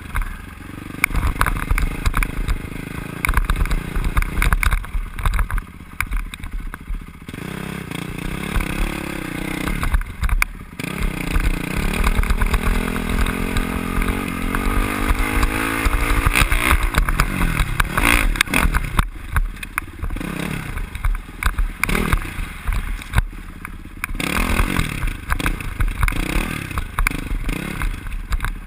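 Dirt bike engine under way, revving up and down as the throttle is opened and closed, with one long rising climb in pitch midway through. Heard from a helmet-mounted camera.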